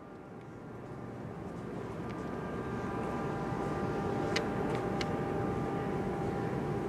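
Engine rumble growing steadily louder, with a steady whine joining about two seconds in and a couple of faint clicks near the middle.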